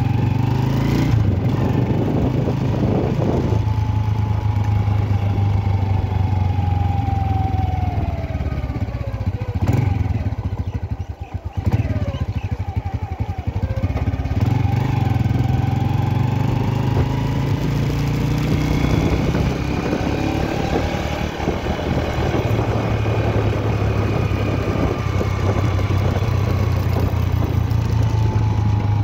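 Motorcycle engine running while riding, its pitch falling and rising with the throttle. About ten seconds in, the engine sound drops away for a couple of seconds, then picks up again.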